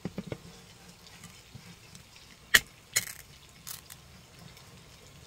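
A drink, likely beer, being opened: a sharp crack about two and a half seconds in, then a short hiss, with a few lighter clicks around it.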